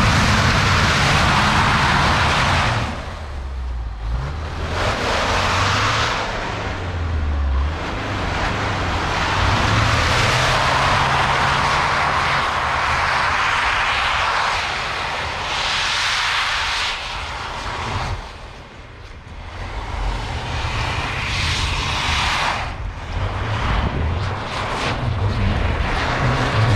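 Lifted 4x4 pickup trucks, including a Mitsubishi L200, driving hard through deep snow: engines revving under load and spinning tyres churning and throwing snow, a loud rushing noise over the engine note.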